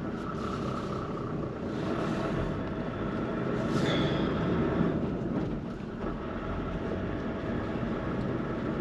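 Vehicle driving slowly over a rough grassy dirt track, heard from inside the cabin: a steady rumble of engine and tyres with light rattles. A brief high squeak comes about four seconds in.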